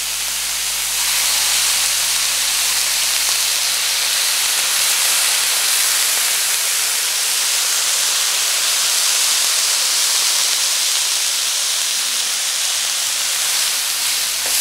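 Pieces of beef tenderloin searing in butter on a flat non-stick tawa: a steady, loud sizzle as the crust forms, growing a little louder about a second in.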